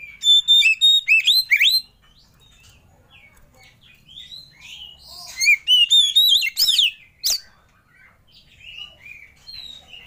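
Oriental magpie-robin singing: two loud bursts of varied, fast whistled phrases, one right at the start and one about five seconds in, with softer chirps in between.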